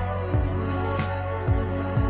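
Background music with sustained chords over a steady beat: deep kick drums and a sharp snare-like hit about every second and a quarter.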